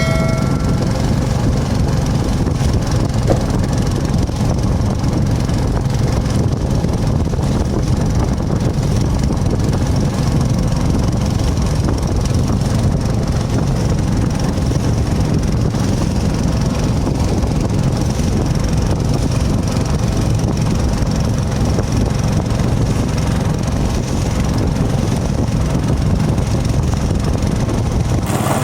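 A small engine running steadily at an even speed for the whole stretch.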